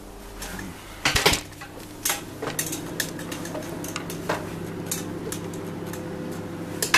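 Kitchen oven door opened with a clatter of knocks about a second in, followed by the steady low hum of the oven running while the meringues bake, with scattered light clicks and knocks.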